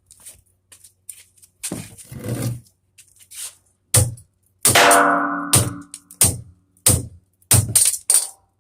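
Metal tool striking a brass doorknob on a door to knock it off: about seven sharp knocks and clanks. One strike near the middle rings out for about a second.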